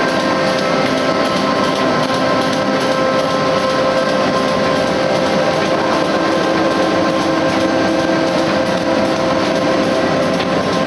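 Steady running noise of a flexographic printing machine and its roll rewinding, an even mechanical clatter with a constant hum.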